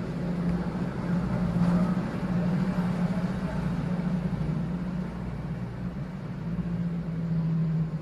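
Low, steady engine hum, swelling a little about two seconds in and again near the end.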